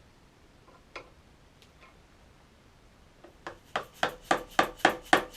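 A single knock, then from about three seconds in a rapid run of hammer taps, about four a second, driving a motorcycle fork leg up into its yoke.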